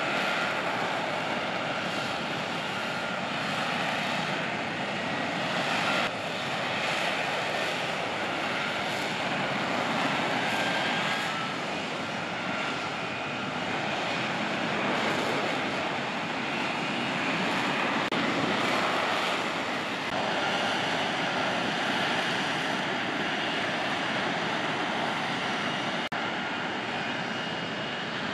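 F-35B Lightning II hovering in vertical-landing mode, its jet engine and shaft-driven lift fan running. A dense, steady jet noise with faint whining tones above it, swelling and easing gently every few seconds.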